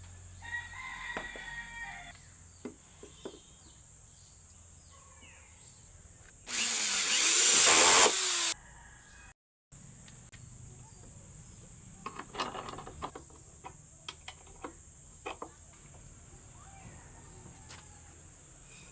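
A power tool, likely a drill, runs for about two seconds midway, getting louder before stopping. Scattered light knocks and taps of hand work are heard around it, over a steady high insect drone.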